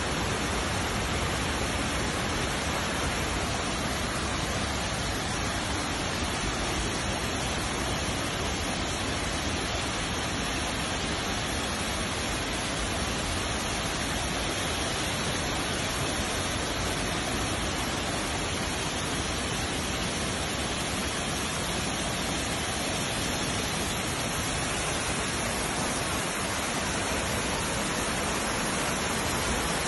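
Steady, even rush of water from a small waterfall pouring over rocks into a stony streambed.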